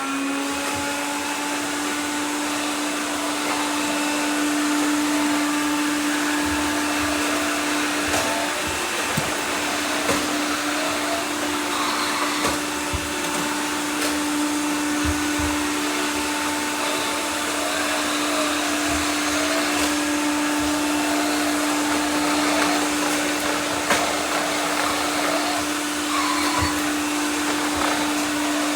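Several robot vacuums running together: a steady motor whine over the hiss of their suction, with scattered short knocks.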